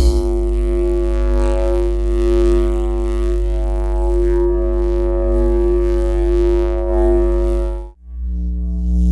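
Lightsaber sound effect: a steady buzzing hum with a rich stack of overtones, wavering slightly in level. About eight seconds in it cuts off abruptly and a different, lower hum takes over.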